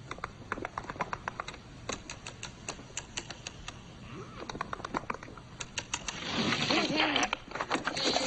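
A quick, irregular run of sharp clicks, like typing. About six seconds in, a louder hissing, wavering sound joins them.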